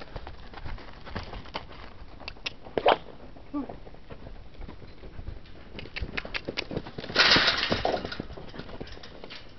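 Tennessee Walking Horse's hooves beating on soft arena dirt as she canters, a scatter of thuds and clicks. A little after seven seconds in, the hoofbeats grow loud as she passes close by, thudding and scuffing through the dirt for about a second.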